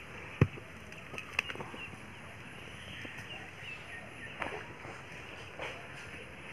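A sharp knock about half a second in, then a few fainter clicks over a steady background hiss.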